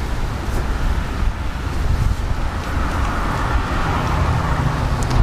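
Steady low rumble of wind buffeting the microphone, mixed with a faint outdoor vehicle hum.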